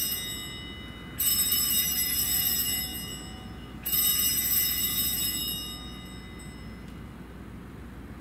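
Altar bells shaken in bright jingling rings: one dying away at the start, then two more, about a second in and near four seconds in, each lasting about a second and a half before fading. They are rung as the signal of the elevation of the consecrated host.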